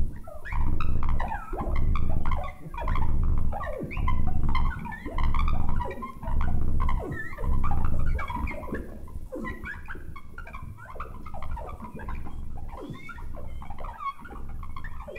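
Ultrasonic acoustic-feedback instruments whose feedback tones are shifted down into hearing range, making squeaky chirps that glide up and down over a low throb. The throb pulses roughly once a second, then falls away about eight seconds in, leaving softer, steadier chirping.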